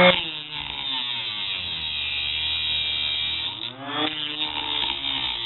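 Homemade mini grinder, driven by a sewing machine motor, cutting a thin metal plate freehand with a small cutoff disc. There is a high grinding hiss, and the motor's pitch sags and recovers twice, a little after the start and about four seconds in, as the cut loads it.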